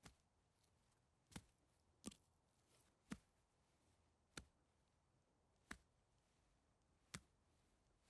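Near silence broken by about seven faint, sharp clicks at uneven intervals, from a computer mouse and keyboard as anchor points are clicked and path segments deleted.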